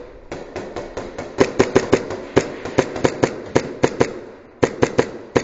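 Airsoft guns firing: about two dozen sharp shots fired one at a time in quick, irregular strings, several a second, with a short pause about four seconds in.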